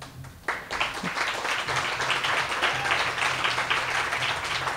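Audience applauding, starting about half a second in after a near-quiet moment.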